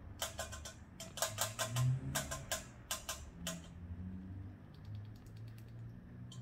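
Baby rat scrabbling at the wire mesh of a cage trap in a bid to escape: a quick, uneven run of sharp metallic clicks and rattles over the first few seconds, then fainter scattered clicking.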